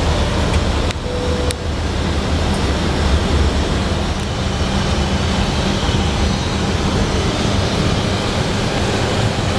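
Steady flight-deck noise of an Airbus A319-112 in flight: a loud, even rush of air over the cockpit with a low drone underneath. Two brief clicks about a second in.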